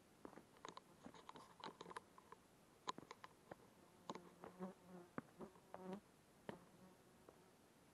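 Faint buzzing of a flying insect in short spells, among scattered soft clicks and taps.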